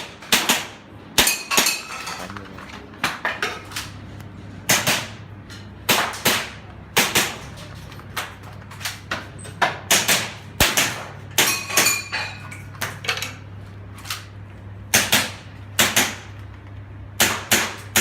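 Airsoft pistol firing a long string of shots, unevenly spaced at about one to two a second, some followed by a short metallic ring.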